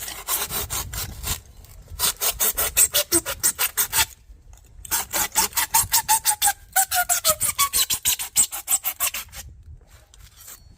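A hand tool rasps quickly back and forth across the edge of an insulation panel, trimming it to fit. The strokes come in three runs, with short pauses between them, and a faint falling ring sounds through the later runs.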